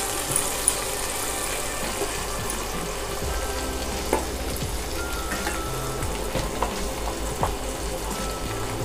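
Dry salted ribbon fish pieces sizzling steadily as they fry in oil in a nonstick pan while the last of their water cooks off, stirred with a wooden spatula that gives a few light knocks against the pan.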